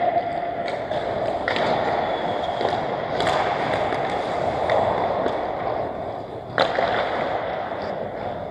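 Pickup ice hockey on the ice: skate blades scraping and carving with a steady hiss, broken by several sharp clacks of sticks on the puck a second or more apart.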